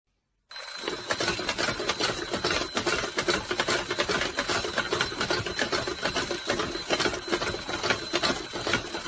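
Twin-bell mechanical alarm clock ringing continuously, a rapid hammer rattle with a steady high bell tone, starting about half a second in.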